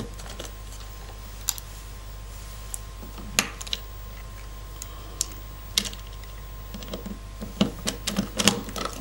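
Small, sharp clicks and taps of hands working a cable into a cable clamp in a dome camera housing, a few scattered at first and coming thick and fast in the last two seconds, over a steady low hum.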